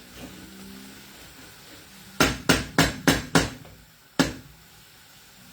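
Six sharp knocks of a kitchen utensil striking something hard: five in quick succession, about three a second, then one more a second later.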